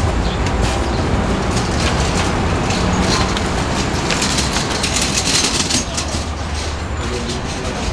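Steady low rumble of heavy city traffic. In the middle, a few seconds of clattering rattle as the small wheels of a shopping cart roll over the concrete sidewalk.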